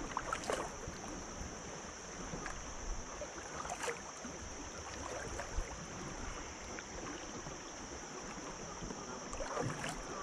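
Kayak paddle strokes in a swift river, with water running past the hull and a few light splashes about half a second in, around four seconds in, and near the end.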